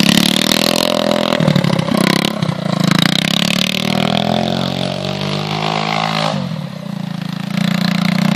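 Small youth ATV engine revving, its pitch rising and falling as the quad spins in the snow for a burnout. The engine falls off about six seconds in, then runs steadily again.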